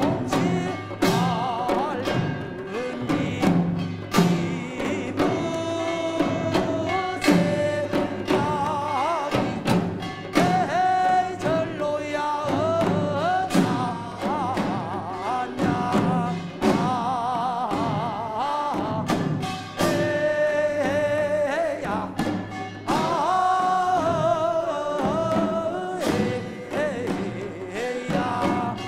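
Korean farming folk song (deulsori) sung with vibrato over buk barrel drums beating in a brisk rhythm.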